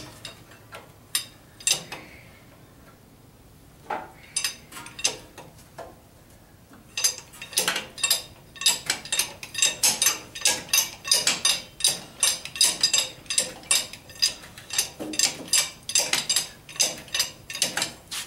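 Hydraulic bottle jack being pumped with its steel handle, the handle clicking and clinking in its socket. A few scattered clicks at first, then from about seven seconds in a steady rhythmic run of a couple of clicks a second as the jack is worked to press the tractor's steering spindle shaft out.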